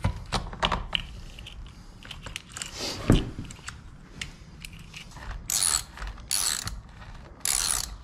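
Small metal clicks and clinks as the chain and bar are fitted onto an Echo chainsaw, with a sharper knock about three seconds in. From about five seconds in come three short bursts of ratcheting as a tool turns on the saw's bar nuts.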